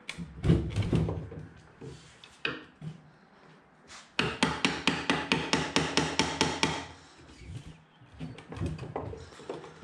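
Claw hammer striking the handle of a screwdriver wedged between the boards of a wooden pallet, knocking the joints loose. A few knocks come first, then a quick even run of about five strikes a second in the middle, then a few lighter taps.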